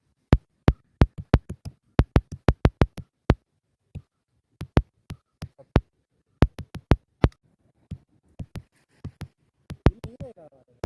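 A run of sharp, irregular clicks, two or three a second, with silence between them.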